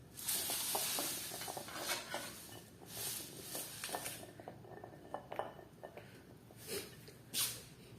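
Irregular clinks, knocks and scraping of kitchen utensils against dishes during food preparation.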